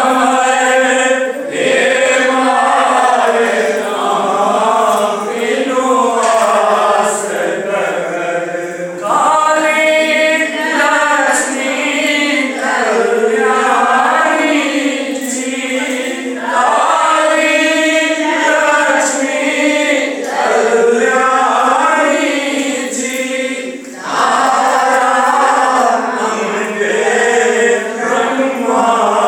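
A group of men and women singing a Maithili devotional bhajan together in long, continuous chanted phrases.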